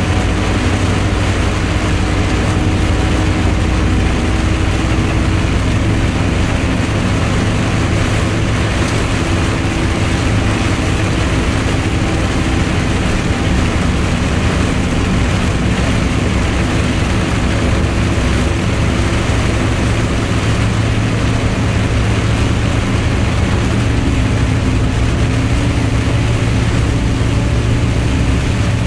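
Heard from inside a dump truck's cab: the diesel engine running steadily at highway speed, with a steady hiss of heavy rain and tyres on the wet road.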